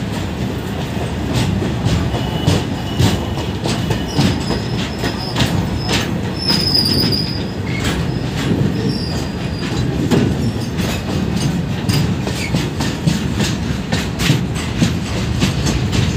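Open-top steel freight wagons running alongside at close range: a continuous rolling rumble of steel wheels on rail with irregular rattling clicks and clanks. Thin high wheel squeals come in about two seconds in and again from about four to seven seconds in.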